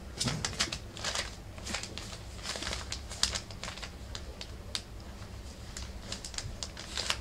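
Newspaper crinkling and ticking irregularly under the paws and claws of four-week-old rough collie puppies as they scramble and play on it.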